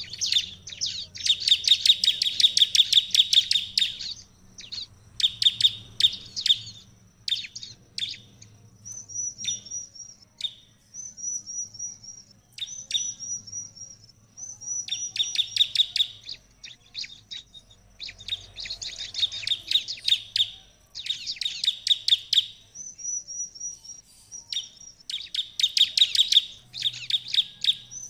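Bar-winged prinia (ciblek) singing: loud bursts of very rapid, high, buzzy trilled notes, each lasting one to three seconds, alternating with short runs of thin, high, down-slurred notes.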